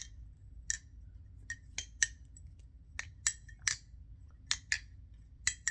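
Nabalis Impulse balisong being flipped through fan tricks: its aluminum handles and stainless blade clack together in about a dozen sharp metallic clicks at an uneven rhythm.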